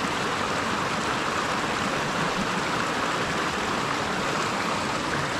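Buckhorn Creek's water running steadily, a continuous even rush.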